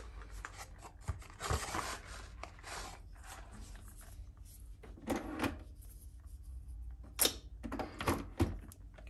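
Clicks and thunks as a coffee capsule is loaded into a Nespresso Creatista Plus machine. There are a few scattered handling knocks, with the sharpest click about seven seconds in.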